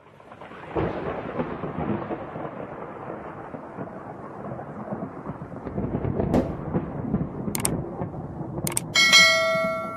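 Thunder rumbling, which starts suddenly and swells about six seconds in. Near the end come a few sharp clicks, then a bright bell-like chime with ringing overtones.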